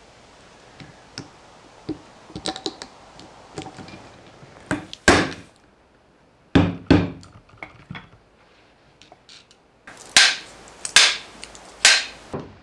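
Hammer blows on a metal drift held against a Land Rover half shaft's joint, driving a part home: light metallic taps and clicks first, then about seven hard, ringing strikes in three groups.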